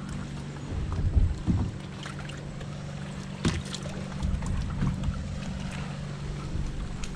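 Water lapping against the hull of a half-sunken fibreglass sailboat, with a few short knocks and bumps and wind buffeting the microphone, over a steady low hum.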